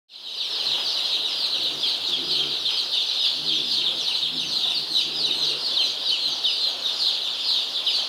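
A large crowd of baby chicks peeping all at once: a dense, continuous chorus of high, short, overlapping peeps. A faint low hum comes and goes underneath.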